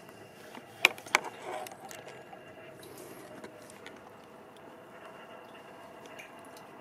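Two sharp knocks about a third of a second apart, followed by brief scuffing, as a person clambers over a concrete ledge towards a ladder. A faint steady hum sits underneath throughout.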